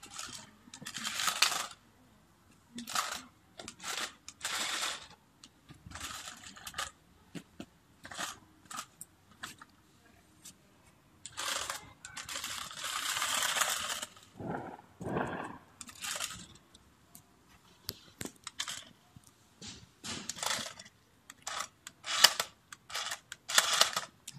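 Remote-control double-sided stunt toy car driven in short spurts: its small electric motors whir and its plastic wheels rattle and scrape on the paving, with pauses between spurts and a longer run about halfway through. Sharp knocks come near the end.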